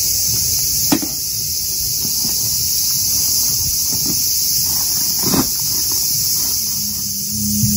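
Cicadas buzzing in a steady, high-pitched summer chorus, with two brief knocks, one about a second in and one about five seconds in.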